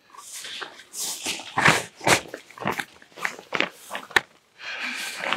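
A tent's fabric rain cover being pulled and smoothed over the roof of a pop-up hub tent: irregular rustling and crinkling of the material, with a sharp click about four seconds in.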